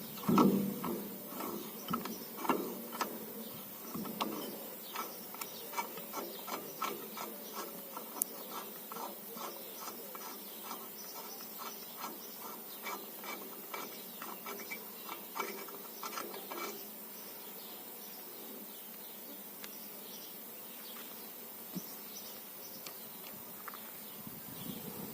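A steady series of mechanical clicks, a couple a second, fading out about two-thirds of the way through.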